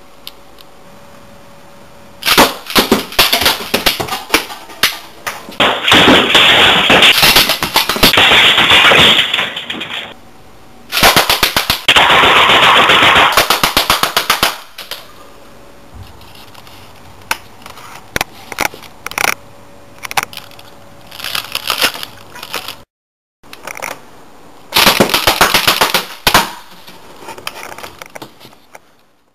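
Homemade eight-coil automatic coilgun firing on full auto in several bursts of rapid sharp cracks, its projectiles striking and smashing a laptop. Quieter gaps separate the bursts, and there are shorter bursts near the middle and end.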